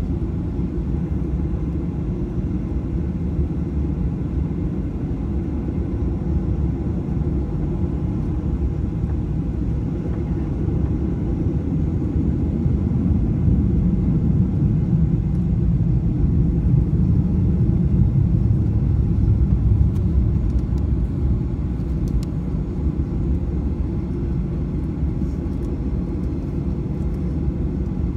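Steady low rumble of a Boeing 737-800 heard from inside the passenger cabin: engine and airflow noise, swelling slightly in the middle and then easing back.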